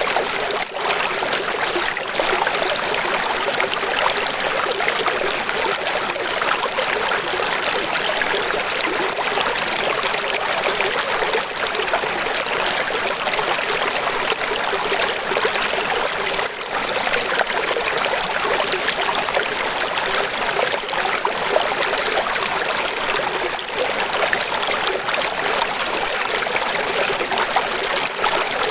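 Steady running water, an even rushing and trickling with no breaks.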